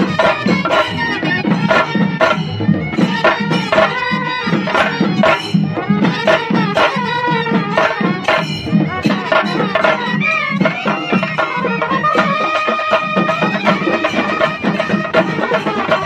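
Singarimelam ensemble of chenda drums beaten with sticks in a fast, dense rhythm, with a pitched melody line over the drumming that holds longer notes in the last few seconds.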